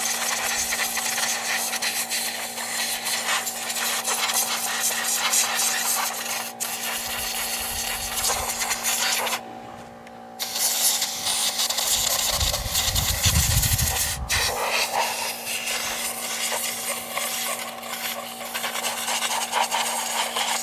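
Compressed air hissing from an air-compressor blow gun as mouse-nest debris is blown out of a Briggs & Stratton flathead engine's cooling fins, with a faint steady hum underneath. The hiss stops for about a second near the middle, and a low rumble follows a few seconds later.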